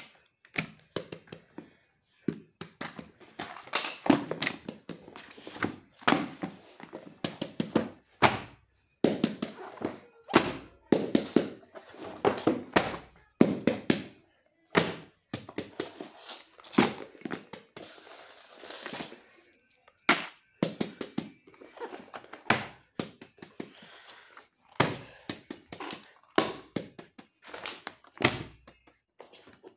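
Schoolbooks being set down and stacked one on another: irregular thunks and handling clatter, with a few indistinct voice sounds.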